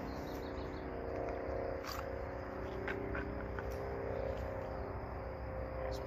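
A steady background drone, with faint rustling and a few light clicks as a pistol is drawn from a concealed holster under a shirt.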